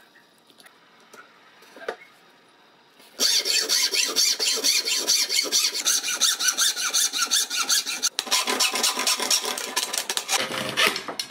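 Hacksaw cutting through a glued stack of G10 and liner sheets clamped in a vise: fast back-and-forth strokes that start about three seconds in, with one short break, and stop shortly before the end.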